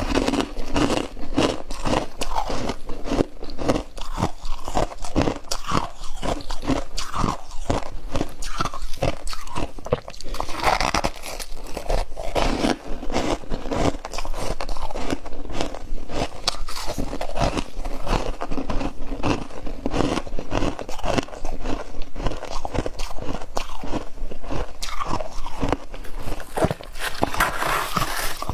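Close-miked biting and chewing of soft, powdery freezer frost: dense, continuous crunching, one bite running into the next.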